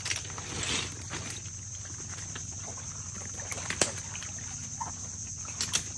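Steady high-pitched insect buzz, with rustling and scattered sharp snaps and clicks as someone moves through mangrove branches and roots over mud.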